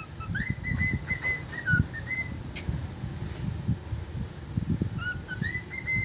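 A cockatiel whistling a tune: a run of short, clear notes mostly on one pitch, starting with a quick upward slide, pausing for a couple of seconds midway, then picking up again near the end. Low soft thumps sound underneath.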